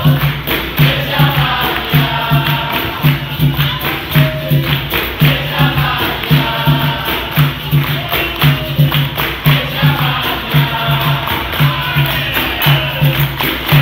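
Capoeira roda music: group singing over a steady, repeating atabaque drum beat, with a pandeiro jingling along.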